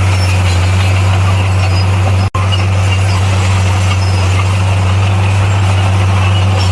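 Diesel engine of heavy earthmoving equipment running steadily with a deep, constant hum. The sound drops out for a split second a little over two seconds in.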